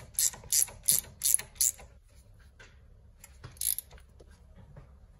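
Hand ratchet wrench clicking in quick strokes, two to three a second, as a bolt on the front suspension is run in. The strokes stop about two seconds in, and one more burst comes about three and a half seconds in.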